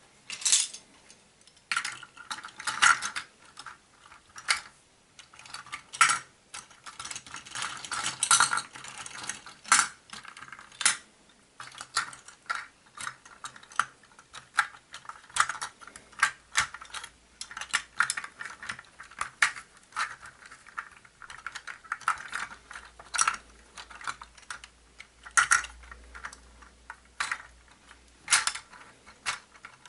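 Hard plastic parts of a model engine kit clicking and clattering as pistons and connecting rods are handled and fitted onto the crankshaft: many irregular light clicks and knocks.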